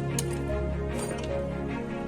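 Background music: sustained notes changing pitch every half second or so, with light, sharp ticks over them.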